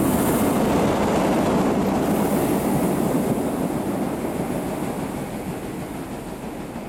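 Two DB class 265 (Voith Gravita) diesel locomotives running coupled past, diesel engines and wheels on the rails. Loudest as they pass in the first few seconds, then fading steadily as they move away.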